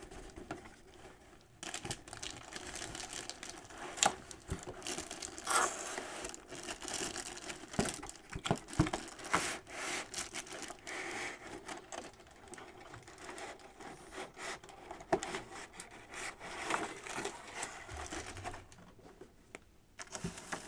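Cardboard box and plastic packaging being handled: irregular rustling, crinkling and scraping with small knocks, pausing briefly near the start and near the end.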